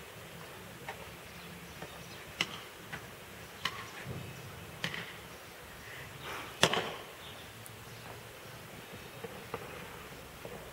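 Scattered sharp knocks and taps from a wooden stick swung as a cricket bat, irregularly spaced, the loudest a crack about six and a half seconds in.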